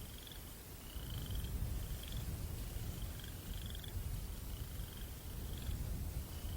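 Low, fluttering rumble of a night breeze with crickets chirping in short, repeated trills, about one or two a second. The rumble swells about a second in.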